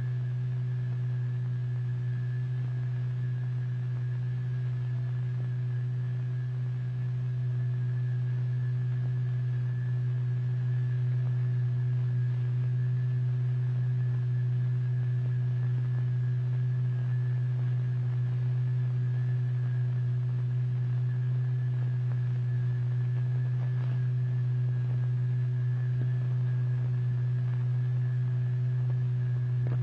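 Steady low electronic tone with faint higher overtones, the vibration driving the fluid into pairs of eddies. It gets slightly louder about seven seconds in.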